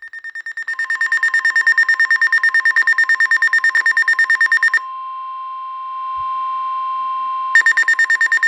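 Weather alert radios sounding their alert alarm: a rapid high beeping, about ten beeps a second. About five seconds in, the beeping gives way to a single steady alert tone over a radio speaker, and near the end the rapid beeping starts again. Together they signal a National Weather Service warning coming in.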